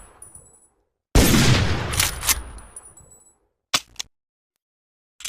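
Winchester Model 1895 lever-action rifle firing a single shot about a second in, the report fading out over about two seconds. Two short metallic clicks follow a little later, typical of the lever being worked, and one more click comes at the very end.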